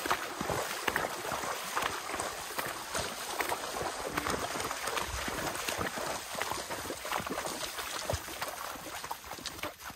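Horse walking through a flooded, muddy track, its hooves splashing and squelching in shallow water and mud with irregular sloshes.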